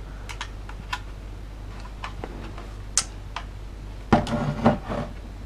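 Light clicks and taps of a hard plastic 3D-printed birdhouse being handled and turned over in the hands, one sharper click about three seconds in, over a steady low hum.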